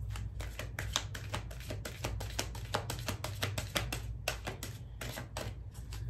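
A deck of oracle cards being shuffled by hand: a rapid, irregular run of crisp card flicks and slaps, over a steady low hum.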